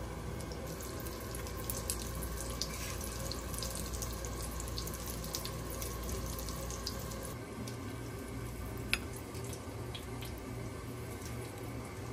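Steady watery hiss in a kitchen with a low hum underneath. A few light clicks of metal utensils against a ceramic plate break through it, the sharpest about nine seconds in.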